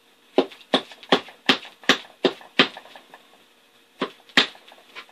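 Hammer tapping staples flush into the seat base of a four-wheeler seat being re-covered in vinyl: a quick run of seven sharp taps, then a pause and two more near the end.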